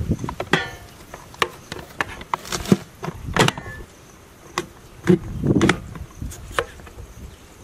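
Irregular sharp clicks and knocks of raw potatoes being cut into fries with a plastic vegetable chopper, with the cut pieces being handled.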